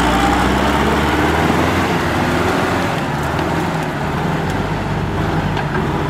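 Kubota tractor's diesel engine running steadily under load as the tractor drives through deep mud.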